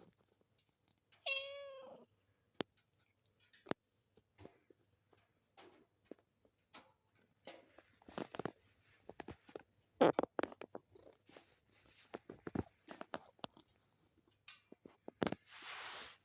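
A Munchkin cat gives one short squeaky cry about a second in, the kind a cat lets out at the end of a yawn, then scattered soft clicks and rustles. There is a breathy hiss near the end.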